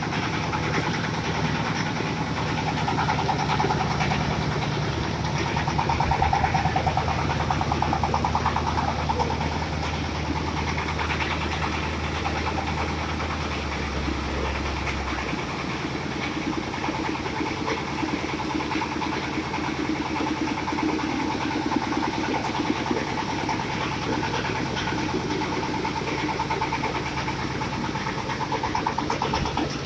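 Engine of a conveyor-type corn sheller running steadily on a test run, with a fast, even throb. About halfway through the deep low note drops away and the running note shifts higher.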